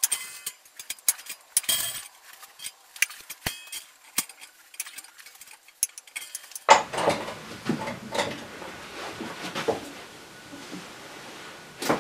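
Bolt cutters snipping through the steel wire rods of an old cooker shelf: sharp separate snaps, some with a metallic ring, and clinks of loose wire. About two-thirds of the way in it turns to a denser run of metal clattering and scraping as the wire rack is handled.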